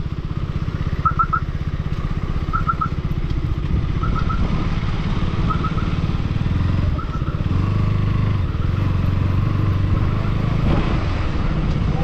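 Motorcycle engine running steadily while riding. A short high triple chirp repeats about every second and a half over it.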